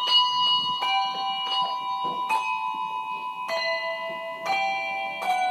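Handbells rung one note at a time by several players, a struck note about every second, each ringing on under the next to pick out a slow carol melody.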